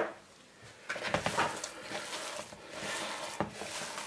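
Hands kneading a sticky minced-meat paste with starch in a bowl: an irregular run of soft squishing and rubbing noises, starting about a second in.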